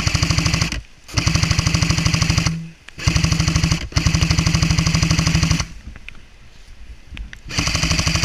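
Airsoft gun firing long full-auto bursts of rapid, even shots, with short breaks between bursts and a pause of about two seconds before a final burst near the end.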